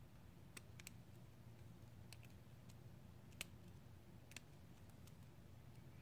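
Faint, irregular metallic clicks of a lock pick working the pin stack of a brass U-Haul 2-inch padlock under tension, about nine small ticks scattered over near-silence.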